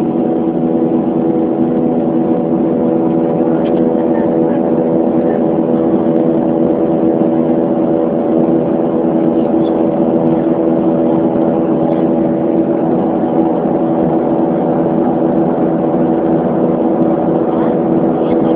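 Steady drone of a jet airliner's turbofan engines heard inside the passenger cabin in flight: a constant hum of several steady tones over a rushing airflow noise.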